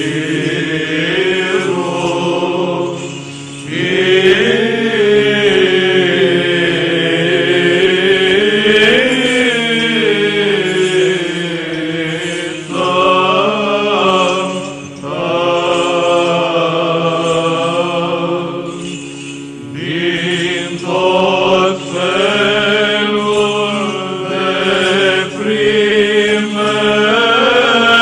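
Orthodox Byzantine-style church chant: voices sing a melody in long held and sliding notes over a steady low drone, pausing briefly a few times.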